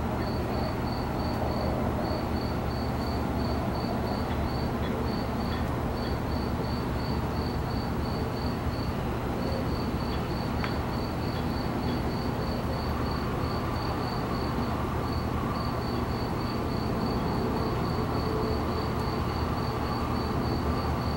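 An insect chirping steadily, about four short high chirps a second, with brief breaks, over a steady low rumble and hiss.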